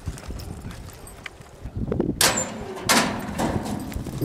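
Hoofbeats in arena dirt, then about two seconds in two loud metallic bangs less than a second apart as the roping chute gate opens to let the steer out for a team roping run.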